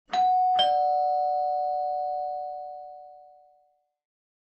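Two-tone doorbell chime: a higher ding followed about half a second later by a lower dong, both ringing on and fading out over about three seconds.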